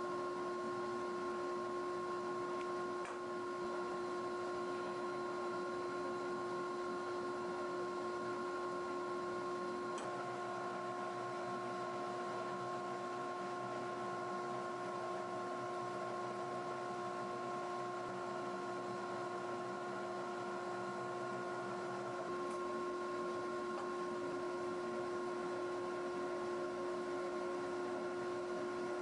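A steady hum made of several held tones, with one more tone joining about ten seconds in and dropping out after about twenty-two seconds.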